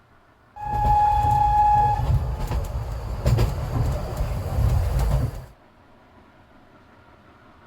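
Narrow-gauge steam locomotive sounding its whistle, one steady note for about a second and a half, followed by the loud rumble and clatter of the train running. The sound starts and cuts off abruptly.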